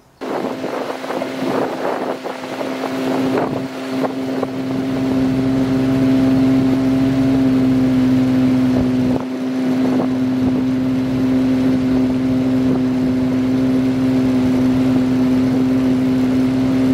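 Small outboard boat motor running at a steady speed, pushing the boat along, with one constant pitch throughout. It grows somewhat louder over the first few seconds, then holds level.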